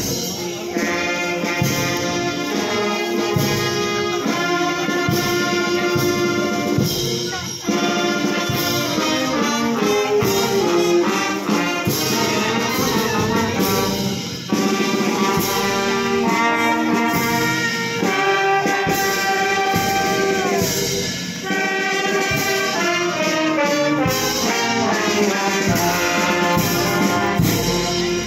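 Marching brass band playing a tune, saxophones and trumpets over a steady drum beat.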